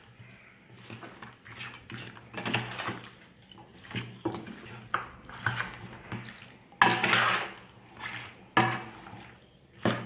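Metal spoon scraping and clinking irregularly against a stainless steel bowl while stirring raw chicken pieces through a curd-and-spice marinade. The strokes come unevenly, the loudest a longer scrape about seven seconds in.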